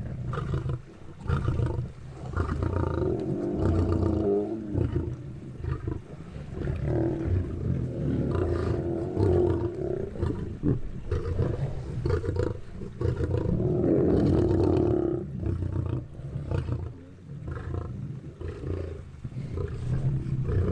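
Lions growling as they feed together on a zebra kill, in several long, low bouts of a few seconds each.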